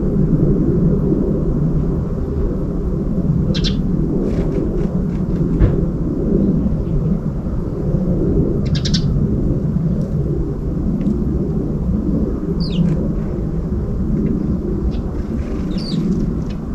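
Steady low outdoor rumble with a few short bird chirps above it, about four, one of them a quick sliding call about three-quarters through.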